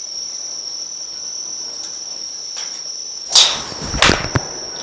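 A golf iron swung and striking a ball off a practice mat: a whoosh a little after three seconds, then a sharp crack at impact about four seconds in, followed by a smaller click. Insects trill steadily on one high tone throughout.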